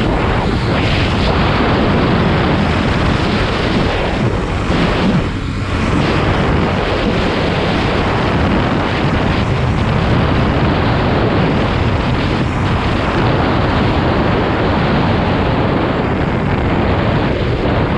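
Wind rushing over the microphone of a motorcycle ridden at about 40 to 60 mph, with the bike's engine running underneath. The noise is loud and steady throughout.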